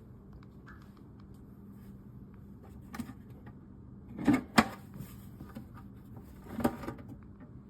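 A few sharp clicks and knocks, the loudest pair about four and a half seconds in, over a faint steady low hum.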